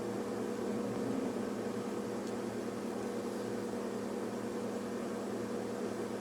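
A steady machine hum with an even airy hiss, like a small fan or blower motor running on the repair bench. A faint tick sounds about two seconds in.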